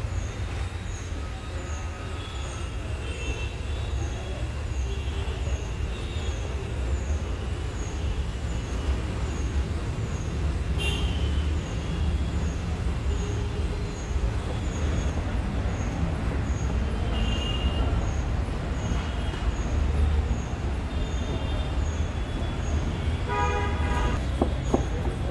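Steady low rumble of passing vehicles, with short high horn toots here and there and a clearer horn toot about two seconds before the end.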